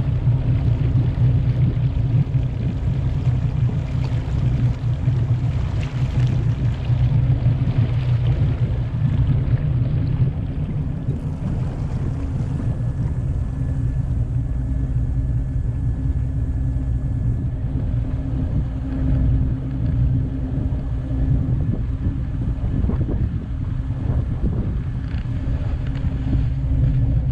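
Motorboat underway, heard from on board: the engine runs in a steady low rumble mixed with wind and water noise.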